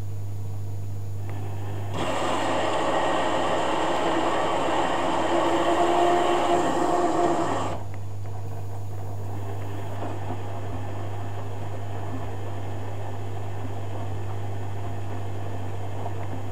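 Zanussi FJ1093 Jetsystem washing machine at the start of a cotton wash: a steady low hum, with a louder rush of water about two seconds in that lasts some six seconds and stops suddenly. Later the drum turns and the wet laundry sloshes more faintly.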